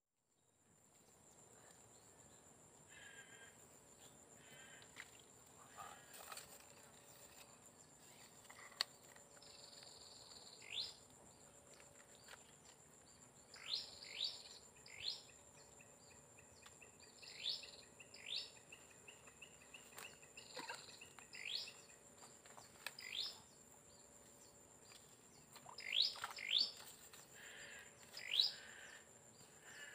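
Wild birds calling: many short, sharp upward-sweeping whistled notes a second or two apart, with a thin steady trill partway through. A constant high-pitched insect drone runs underneath.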